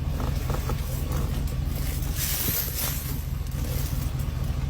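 Steady low rumble, with a brief hiss between about two and three seconds in.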